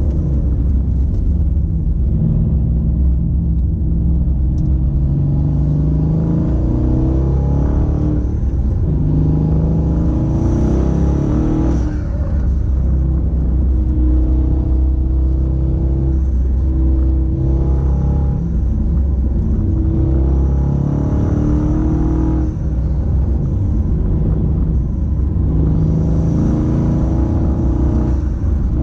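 Twin-turbo Mercedes V8, an M156 enlarged to 5.8 litres, heard from inside the cabin while driving. The engine note rises in pitch and falls back several times as the car accelerates, shifts and eases off, over a heavy low hum of engine and road.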